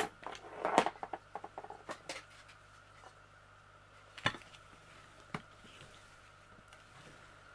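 A few sharp clicks and light taps over a faint steady hum: a rolling pin being handled and pressed over a diamond painting canvas to seat its resin beads. The loudest click comes at the very start, with two more about four and five and a half seconds in.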